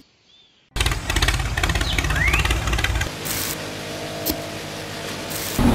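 A small motor running: it starts loud and rattling with rapid pulses about three-quarters of a second in, drops to a quieter steady hum around the three-second mark, and comes back as a louder steady hum near the end.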